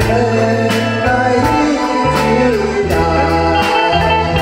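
A man singing into a microphone over a karaoke backing track: a bass line, keyboard chords and a steady drum beat about every three-quarters of a second.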